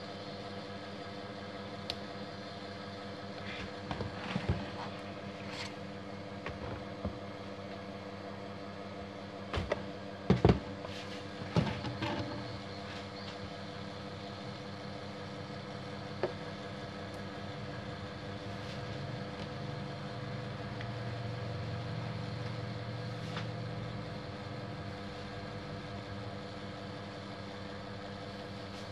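Scattered clicks and knocks of hard plastic as a copier's spacer-roller unit is handled and worked on with a small tool, the loudest knocks about ten seconds in. A steady machine hum runs underneath, swelling lower for a few seconds past the middle.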